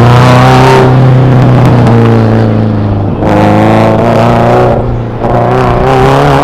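Loud car engine running hard, its revs rising and falling with two louder surges of throttle in the second half.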